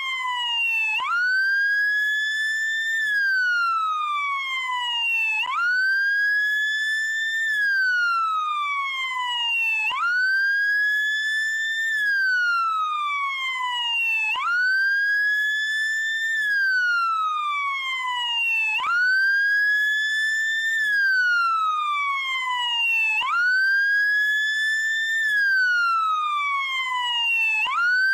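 Police car siren on its wail setting: the tone sweeps up quickly, holds briefly at the top, then slides slowly down, repeating about every four and a half seconds.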